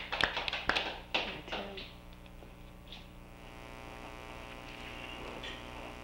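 A handful of sharp taps and knocks with paper rustling as sheets of paper are handled and set down on a lectern, all within the first two seconds. After that only a steady electrical hum remains.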